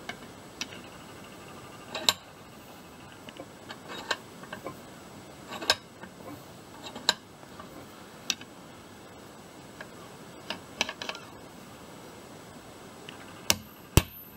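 Light metal clinks and knocks as a steel strap and socket are handled and repositioned in a bench vise, then two sharp hammer blows near the end on the centreboard pivot held in the vise, driving the pivot bolt out of its bushing.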